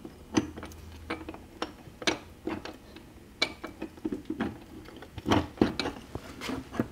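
Irregular metal clicks and clinks as a cast cover is set by hand onto a gasket on a transmission's extension housing and shifted into place, with a louder cluster of knocks about five seconds in.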